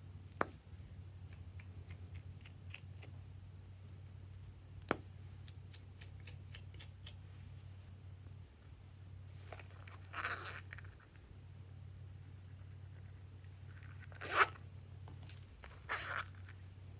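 Small plastic containers handled over glass trays: two sharp plastic clicks and a few faint ticks, then three short rattling shakes, the second the loudest, as glitter is shaken out of a container onto the slime. A low steady hum runs underneath.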